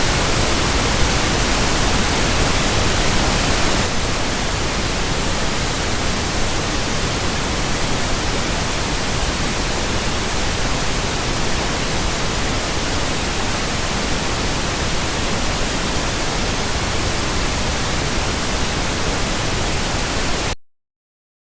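Steady, even pink-noise hiss. It drops slightly in level about four seconds in, then cuts off suddenly near the end, leaving silence.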